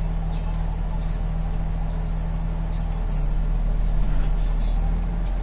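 Steady low drone of a bus idling while stationary, heard from inside the passenger cabin, growing a little louder from about three seconds in.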